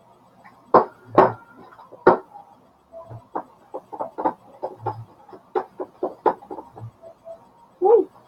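Slime being stirred in a bowl: a few louder knocks, then a run of quick clicks and taps, about two or three a second, with a louder squelchy knock near the end.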